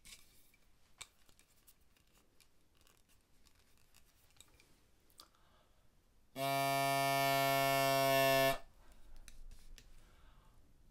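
Tenor drone of a Flemish bagpipe, a wooden pipe with a single cane reed, blown by mouth: one steady, reedy note on D held for about two seconds, then cut off, as the drone is checked for tuning. Before it come faint clicks of the wooden sections being handled and fitted.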